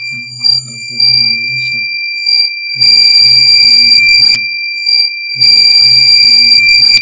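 Homemade water-tank overflow alarm's 5-volt buzzer sounding one continuous high-pitched tone, with a harsher, louder noise swelling over it twice. It is the sign that the tank is full and the probe connector is covered by water.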